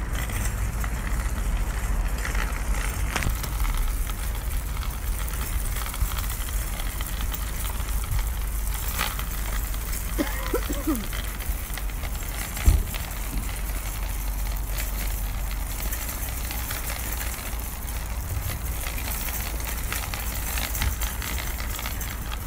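Steady low rumble and crackling noise of a handheld phone microphone carried on a walk, with one sharp thump about halfway through.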